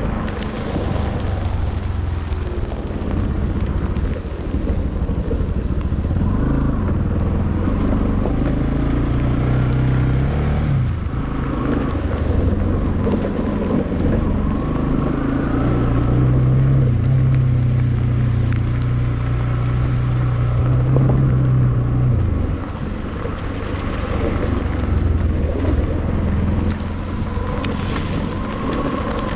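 Motorcycle engine running on the move, its pitch stepping up and down as it changes speed; it eases off about three-quarters of the way through. Wind buffets the microphone.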